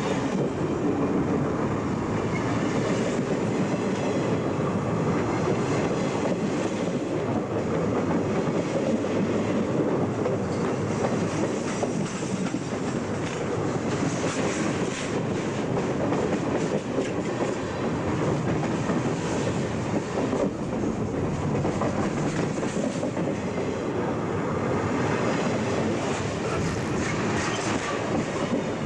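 Freight train cars rolling directly over the camera, heard from between the rails: a steady rumble of steel wheels on rail, with clattering as the wheels pass over joints.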